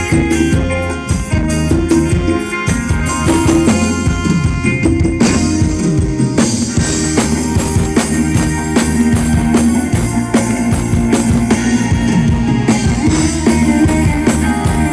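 Live Thai ramwong band music with a steady drum-kit beat.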